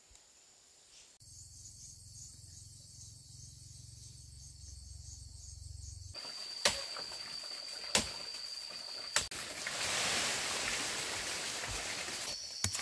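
Forest ambience of insects trilling at a steady high pitch, with three sharp clicks in the middle and a few seconds of steady hiss near the end.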